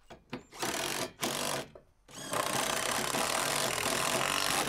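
Cordless impact driver driving lag screws into the deck framing through a steel post: two short bursts, then a long steady run of rapid hammering starting about two seconds in.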